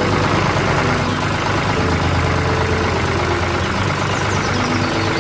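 A heavy engine running steadily at an idle, like a tractor's, with a low hum throughout.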